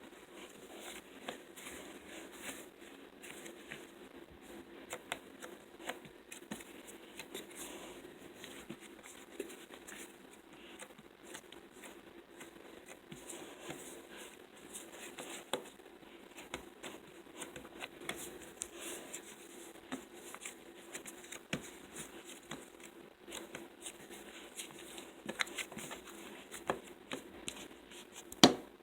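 Slime being squeezed and poked by hand, giving a run of small irregular clicks and crackles, with a sharper click near the end.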